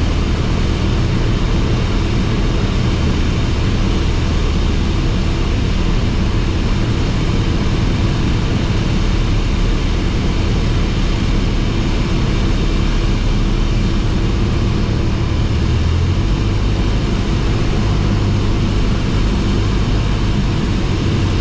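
Cessna 172S's four-cylinder Lycoming IO-360 engine and propeller droning steadily in flight, heard from inside the cabin. The engine note shifts about sixteen seconds in.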